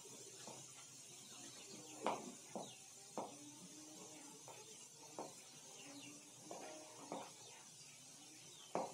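Chalk writing on a blackboard: faint, irregular taps and short scrapes as the chalk strikes the board, over a steady hiss.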